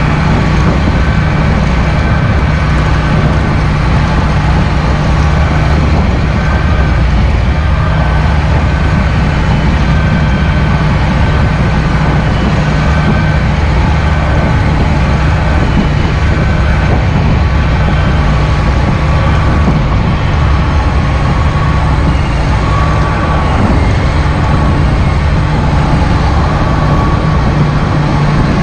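John Deere 8430 tractor's six-cylinder turbodiesel engine running steadily as the tractor drives along a dirt track.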